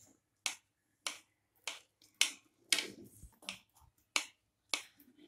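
Kitchen knife pressed down through a soft steamed dhokla, its blade clicking sharply against the plate beneath with each cut, about two clicks a second, around nine in all.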